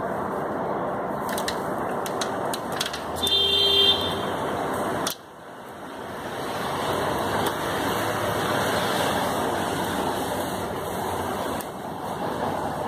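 Steady hiss of traffic on a wet street with breeze on the microphone, and a brief car horn about three seconds in. The noise drops out suddenly about five seconds in and slowly swells back.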